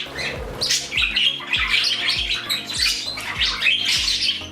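A flock of pet budgies, cockatiels and other small parrots chattering and squawking continuously, over background music with a steady beat of about two a second.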